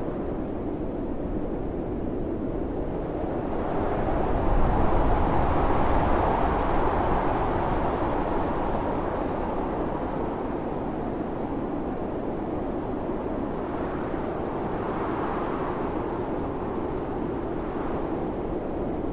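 Blizzard wind blowing in a steady rush, swelling into a stronger gust about four seconds in that eases off over the next few seconds, with lighter swells near the end.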